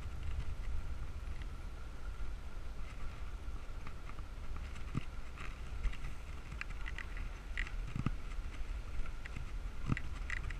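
Bicycle riding noise on a bike-mounted action camera: steady low wind and road rumble, with scattered clicks and rattles from the bike.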